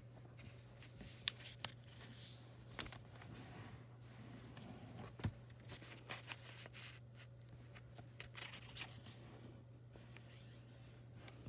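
Faint rustling and scraping of a sheet of thick origami paper being folded and creased by hand, with scattered small clicks as the folds are pressed flat. A low steady hum runs underneath.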